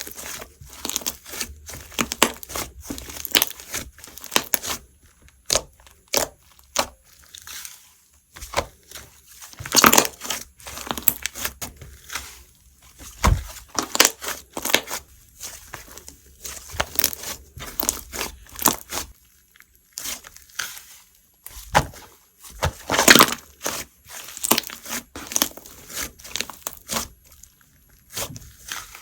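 Slime being squeezed and stretched by hand, giving off irregular sharp pops and crackling clicks, with a few louder pops along the way.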